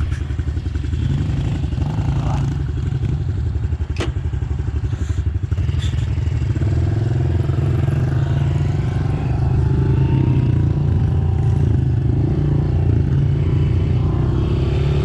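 Small 110cc engine running steadily, a little louder from about the middle on, with one sharp click about four seconds in.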